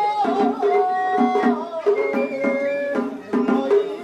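Japanese festival hayashi music: a held, wavering melody line gliding between notes over a steady, fast pattern of pitched drum beats.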